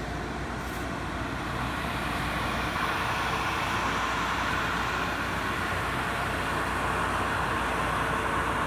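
Dri-Eaz LGR 3500i commercial dehumidifier running steadily, its fan blowing with a low hum and a faint steady tone, a little louder about three seconds in.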